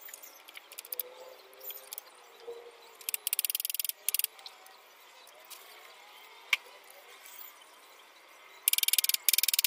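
Scattered light taps and one sharper knock from hand tools on wooden poles. A loud, very fast clicking trill comes in two bursts: a short one about three seconds in and a longer one near the end.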